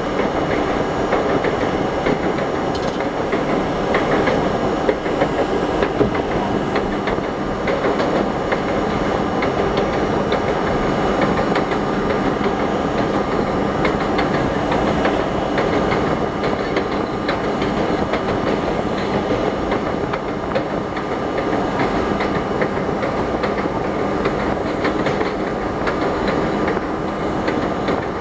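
R32 subway car running at speed on elevated track, heard from inside the lead car: a continuous rumble of steel wheels on rail with quick clickety-clack over the rail joints and a steady hum underneath.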